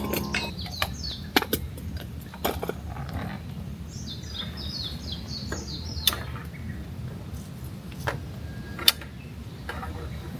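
Small bird singing rapid trills of short falling chirps, once near the start and again for about two seconds from four seconds in. Several sharp clicks and knocks sound in between.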